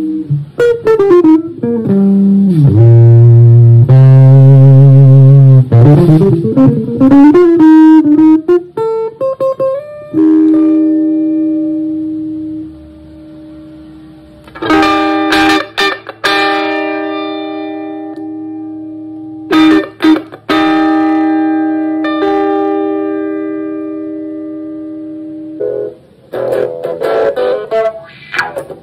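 Electric guitar played through a Malagoli Sound ES-3 fuzz pedal, a tone rich in overtones: sliding and wavering bent notes at first, then long sustained single notes, and a busier strummed passage near the end.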